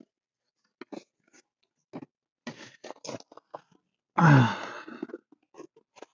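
Scattered crackles, scrapes and clicks of a wire and the floor mat and carpet being handled as the wire is worked under the seat belt anchor and along the floor. About four seconds in there is a short, low grunt with a falling pitch.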